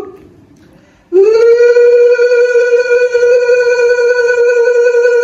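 Conch shell (shankha) blown in long held notes. A first note falls away in pitch right at the start; after about a second's pause a second note begins, rising briefly into a loud, steady pitch that is held for the rest of the time.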